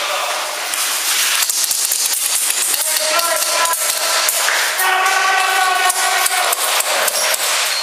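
Airsoft guns firing in rapid strings of sharp clicks, with pellets striking hard surfaces, heaviest about a second and a half in. Players' voices are shouting over it.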